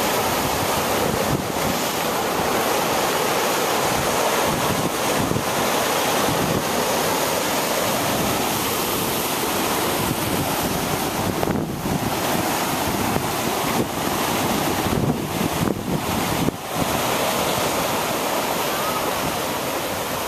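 Rough surf surging and breaking against a rocky sea cliff: a continuous wash of churning whitewater, with wind buffeting the microphone.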